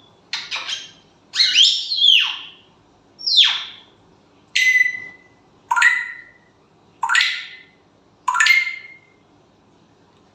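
A parrot giving a series of about eight loud, high calls, roughly one a second, each falling in pitch.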